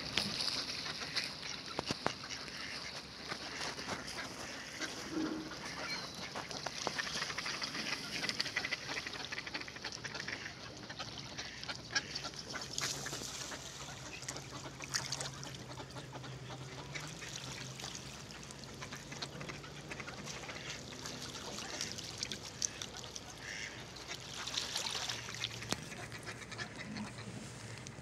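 A flock of mallard ducks quacking and calling, many short calls overlapping.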